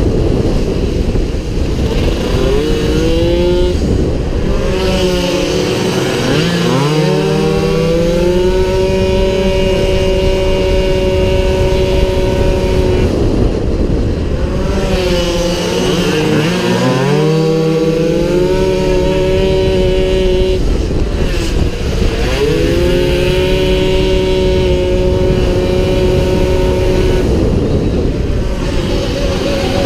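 Small 48cc racing scooter engine running flat out from on board, held at high revs, with the pitch falling away and climbing back up about four times as the rider comes off the throttle and accelerates again.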